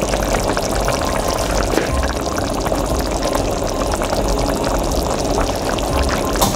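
Thick marinara sauce with meatballs simmering in an enamelled pot, bubbling and popping with a dense run of small pops, with one sharp click near the end.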